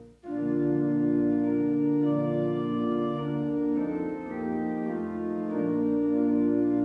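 Church organ playing slow, held chords, with a brief break just after the start before the next phrase begins.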